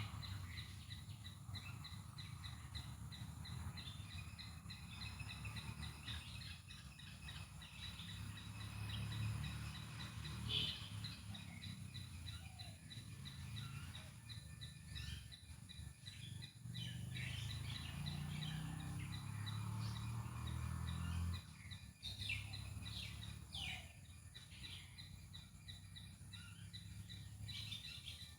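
Palm squirrel chirping in quick, repeated high calls, over a low rumble of background noise that swells and then drops away about three quarters of the way through.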